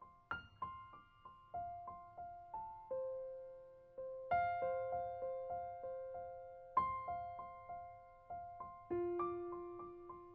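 Background piano music: gentle single notes struck a few per second, each left to ring and fade, over held lower notes.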